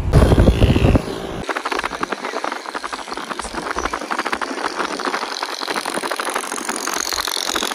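Car driving on a rain-wet road: a low in-car rumble for about the first second, then a dense crackling hiss of tyres and wind.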